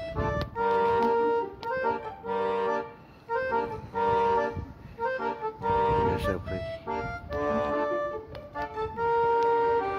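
Instrumental music: a melody played in short phrases of held notes, with brief gaps between phrases.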